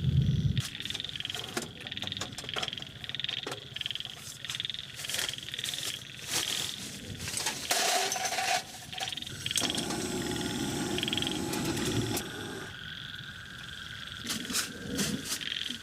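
Frogs calling in a steady repeating chorus, about two calls a second, with scattered sharp clicks and knocks over it.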